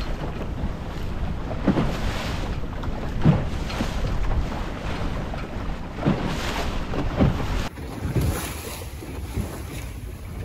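Wind buffeting the microphone and water rushing and splashing along the hull of a 14 ft Welsford Navigator sailing dinghy under way under mainsail, with a surge every second or two. The sound changes abruptly, becoming quieter and duller, about three-quarters of the way through.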